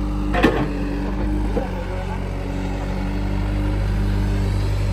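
Heavy diesel machine engine running steadily at a constant speed, with one sharp knock about half a second in.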